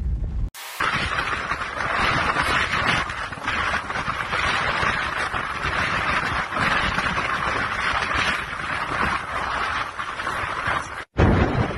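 Strong wind rushing over a phone microphone, with the crunching and crackling of lake ice shoved ashore by the wind as it piles up.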